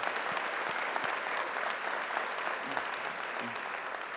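Audience applauding: many hands clapping steadily, tapering off a little near the end.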